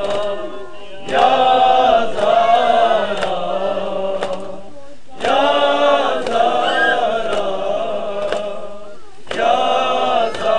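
Men's voices chanting an Urdu noha, a Shia lament, without instruments, in three long drawn-out phrases with short breaks between them.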